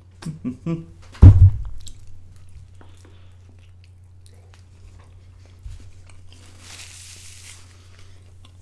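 A man biting into and chewing a slice of crispy thin-crust pizza, with crunching. About a second in there is a sharp thump, the loudest sound, over a steady low hum.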